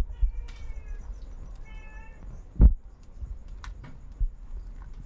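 Two short high-pitched animal calls: the first falls in pitch, the second is held briefly. A loud thump comes about two and a half seconds in, followed by a few lighter knocks.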